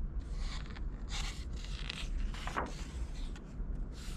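A page of a hardcover picture book turned by hand: paper rustling and sliding in several short strokes.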